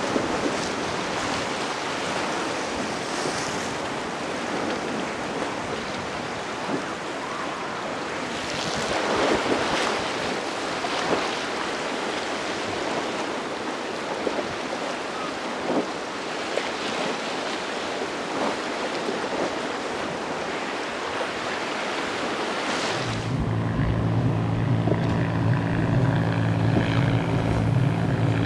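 Waves and boat spray splashing in a rough inlet. About 23 seconds in, the triple Mercury 300 outboard engines of a Sea Vee center console come in, running steadily as it passes.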